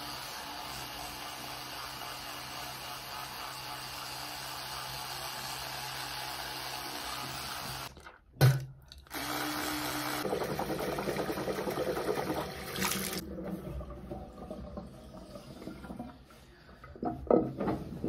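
Electric toothbrush buzzing steadily while brushing teeth. It cuts out briefly about eight seconds in with a knock, runs again with a changed tone, and stops about thirteen seconds in, followed by quieter scraping and a few loud scuffs near the end.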